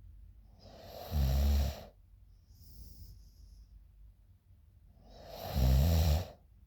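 A sleeping woman snoring: two loud, low rattling snores about a second long, about four and a half seconds apart, with a soft breath out between them.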